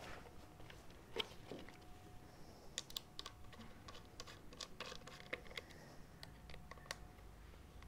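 Faint, scattered light clicks and taps of an Allen key and hands on a Virutex Planer Duo CE223X, tightening the grub screw that locks its sanding drum in place; the sharpest click comes about a second in.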